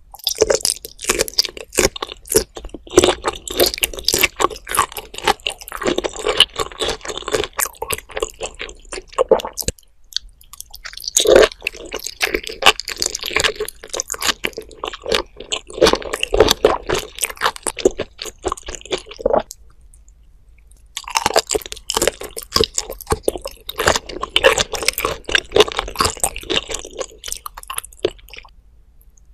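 Close-miked chewing of raw shrimp topped with flying fish roe: wet, squishy mouth sounds with a dense crackle of tiny clicks. The chewing comes in three bouts, with short pauses about ten and twenty seconds in.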